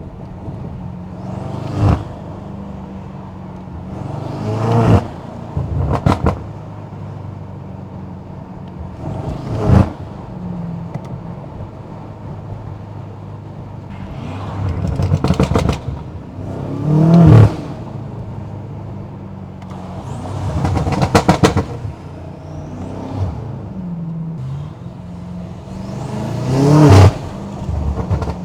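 Stage 2 tuned BMW M8 Competition's twin-turbo V8 running steadily, then revved hard about six times in short pulls. Several pulls are followed by rapid crackling pops from the exhaust as the throttle closes.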